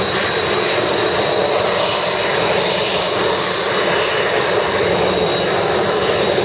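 Kawasaki T-4 jet trainer's twin turbofan engines running at taxi power: a steady, loud rush with a constant high-pitched whine over it.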